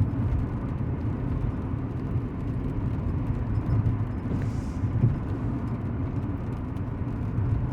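Truck driving on the highway: a steady low rumble of engine and road noise.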